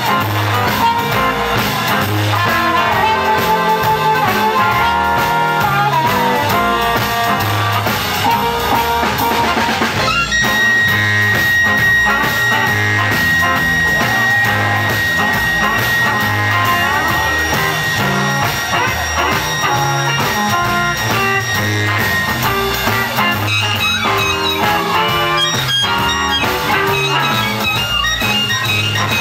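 Live electric blues band playing: harmonica cupped in the hands at a microphone leads over electric guitar, bass and drum kit. About a third of the way in, the harmonica holds one long high note for roughly ten seconds.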